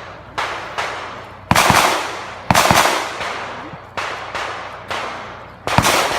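Pistol shots fired at irregular intervals, about eight in all, each a sharp crack followed by a long echoing decay; three of them, about a second and a half in, two and a half seconds in, and near the end, are louder than the rest.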